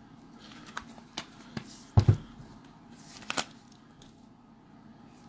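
Plastic coin tube full of silver rounds handled in gloved hands: a few scattered light clicks and taps, the strongest about two seconds in.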